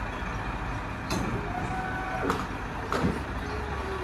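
Farmtrac 60 tractor's diesel engine running steadily, with three short sharp knocks.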